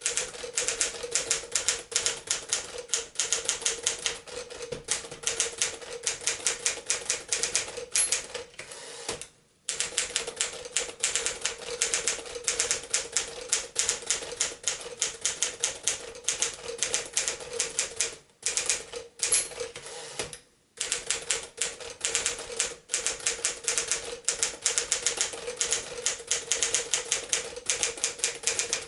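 Keys of a 1950 Smith-Corona Silent (5-Series) manual typewriter clattering in fast, continuous typing. There are a few brief pauses, and twice a short high ring comes just before one.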